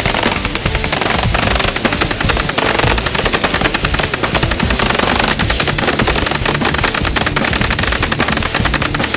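Uzi submachine gun firing on full auto, a long stream of rapid shots, with music underneath.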